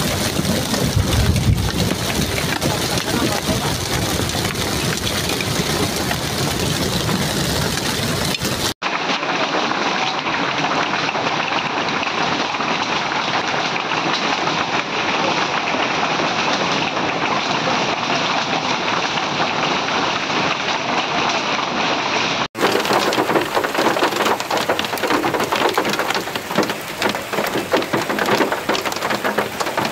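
Hailstorm: hail and rain beating down hard on surfaces as a dense, steady clatter of countless small impacts. Three separate recordings follow one another, with abrupt cuts about a third of the way in and again about three quarters through.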